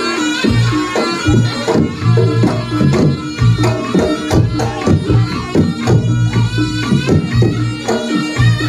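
Reog Ponorogo ensemble music: kendang drums and gongs keep a driving rhythm under the reedy melody of the slompret, the reog shawm.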